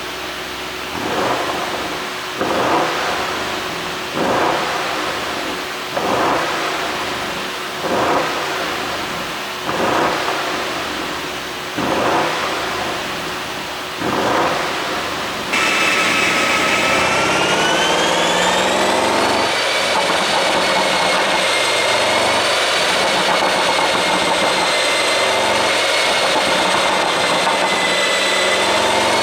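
Audi RS Q8's 4.0-litre twin-turbo V8 revved in about eight quick blips, roughly one every two seconds, each rising sharply and falling away, running through an ECU tune for exhaust pops. About halfway in it changes abruptly to a steady drone with a high whine that rises over a few seconds and then holds.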